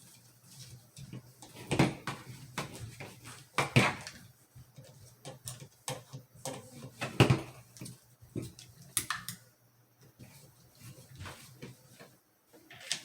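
Scattered clicks, taps and knocks of a screwdriver and metal parts as the two action screws of a Remington 597 rifle are backed out and removed and the rifle is handled, with a few sharper knocks about 2, 4 and 7 seconds in.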